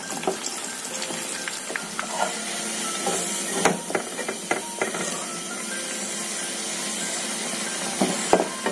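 Gram-flour-battered bread fritter deep-frying in hot oil in a kadai: a steady sizzling hiss with small crackling pops, and a few sharper clicks about four seconds in and again near the end.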